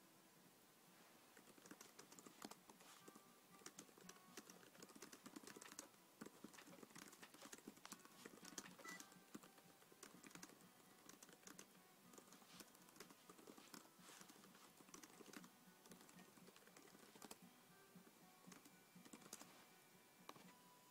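Faint, irregular clicking of typing on a computer keyboard, starting about a second and a half in, with a few faint held tones underneath.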